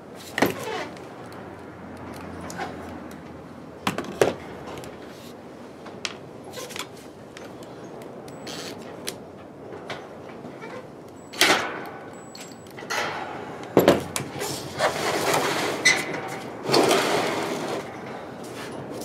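Handling noises: a few sharp knocks and clicks about half a second in, around four seconds, and again near twelve and fourteen seconds, with longer scraping and rustling passages in the last few seconds.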